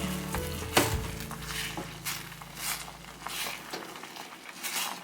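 Food sizzling in a pan, with irregular scraping stirring strokes every half second or so.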